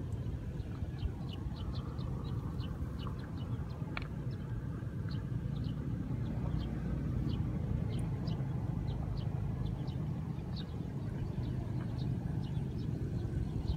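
Many short, high bird chirps repeated irregularly over a steady low rumble.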